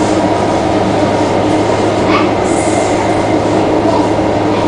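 Interior running noise of an SMRT C151 metro train travelling at speed: a steady hum and rumble of wheels on rail, with a brief click about two seconds in.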